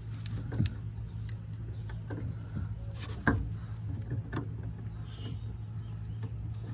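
Light handling clicks and knocks as a rubber mounting clamp is fastened around a wooden axe handle, the sharpest knock about three seconds in, over a steady low hum.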